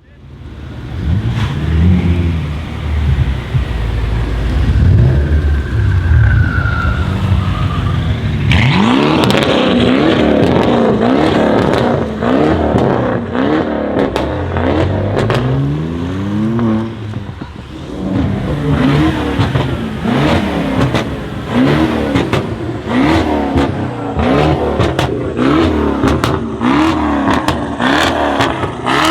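Tuned BMW 650i V8 exhaust: a low rumble for about eight seconds, then a string of quick throttle blips, about one a second, each rising and falling in pitch. Sharp crackles and pops from the exhaust come between the blips, thickest near the end.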